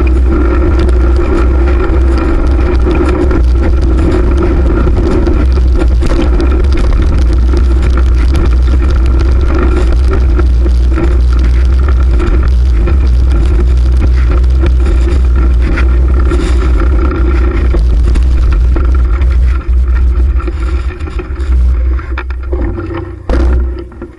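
Loud, steady rumble of rushing air and tyre-and-road noise, recorded from a moving fixed-gear bicycle. It grows uneven and fades away over the last few seconds.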